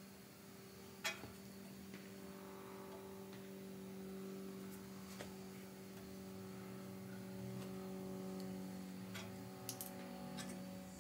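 Light clicks and taps as small parts are handled at the flue collar on top of a steel oven box, over a steady low hum. There is one sharper click about a second in and a small cluster of clicks near the end.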